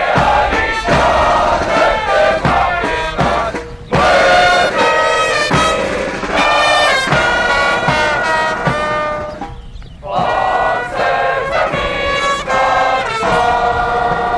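Military brass band playing a ceremonial salute piece, with sustained brass notes over steady drum beats. The drums are strongest in the first few seconds, and the music breaks off briefly twice.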